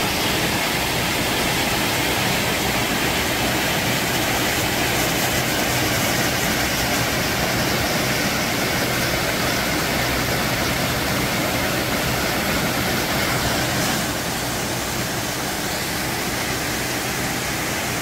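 Waterfall pouring into a deep rock plunge pool: a steady, dense rush of falling water that drops slightly in level about fourteen seconds in.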